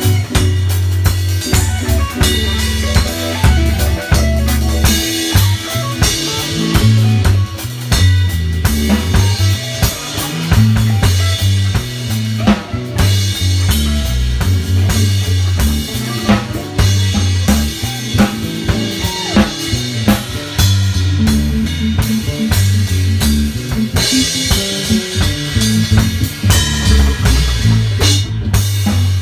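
Dub music: a drum kit beat over a heavy, repeating bass line.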